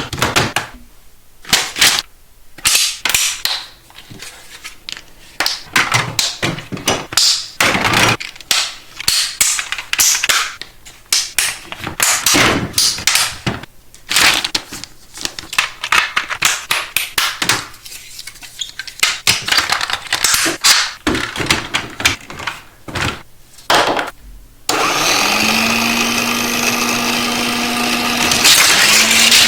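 Hard plastic toy track pieces and packaging being handled: a dense run of clicks, taps, snaps and rattles. Near the end this gives way abruptly to a steady hum with a held low tone.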